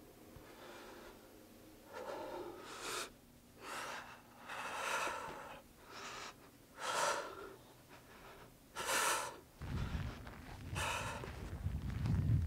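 A man breathing hard, taking loud sharp breaths about once a second, the breathing of physical exertion during push-ups. A low rumble comes in about three-quarters of the way through and grows toward the end.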